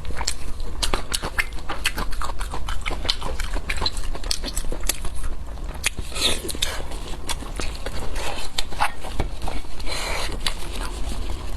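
Close-up eating sounds of a person biting and chewing meat from a spiced sheep's head: a dense run of short wet clicks and smacks. A steady low hum runs underneath.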